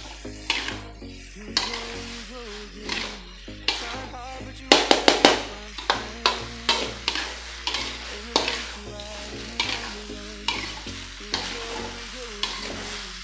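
Metal spatula scraping and clanking against a metal wok while stir-frying vegetables, over a sizzling hiss from the pan. There is a quick run of strokes throughout, loudest in a burst about five seconds in.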